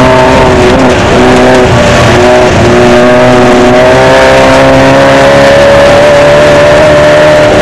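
Off-road desert race car's engine under load, heard from on board: loud, its note dipping and picking up again a few times, then holding in a long pull that slowly rises in pitch from about three seconds in. A steady rush of wind and road noise runs under it.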